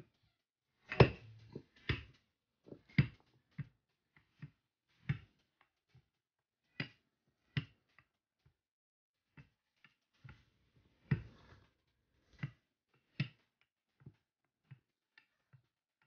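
Wooden rolling pin knocking and thudding on a floured countertop as pie crust dough is rolled out: a dozen or so irregular knocks, the loudest about a second in.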